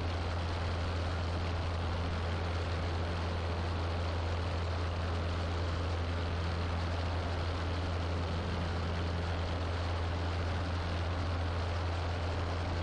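Piper Archer PA-28-180's four-cylinder Lycoming engine and propeller in steady cruise, heard from inside the cabin as an even drone with a strong low hum and hiss over it.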